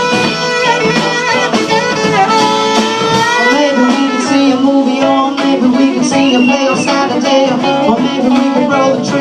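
Live band playing an instrumental jazz-blues passage, a saxophone carrying the lead over guitar.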